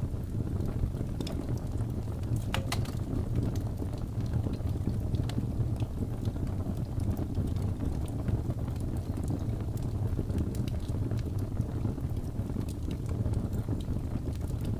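Wood fire burning: a steady low rumble of flames with scattered crackles and pops, one sharper pop about two and a half seconds in.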